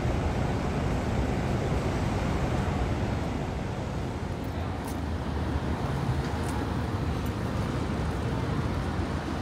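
Steady outdoor background noise: an even low rumble with no distinct events.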